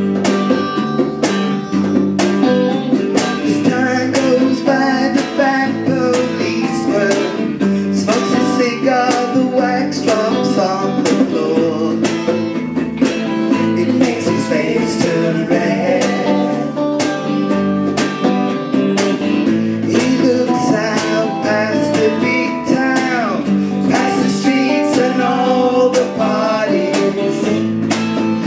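Live band playing a song: amplified electric guitar under a male and a female singer on microphones, the music continuous and loud.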